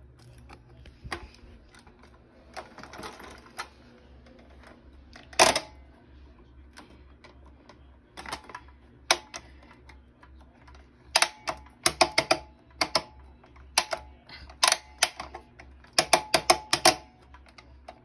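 Sharp clicks and taps on the metal head of an upright vacuum with its motor off. There is one loud click about five seconds in, then quick clusters of clicks in the second half.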